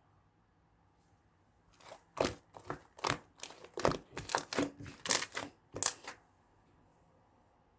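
Crinkling and rustling in a quick run of short, sharp crackles from about two to six seconds in.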